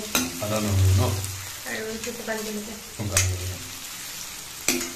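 Sliced onions and dried red chillies sizzling in oil in a stainless steel pan, stirred with a metal spoon that scrapes the pan and knocks against it a few times.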